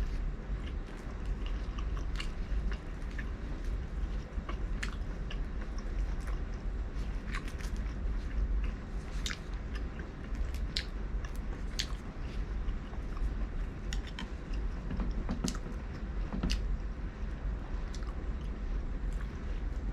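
A person eating close to the microphone: steady chewing and biting, with many short, sharp crunchy clicks scattered irregularly, over a constant low hum.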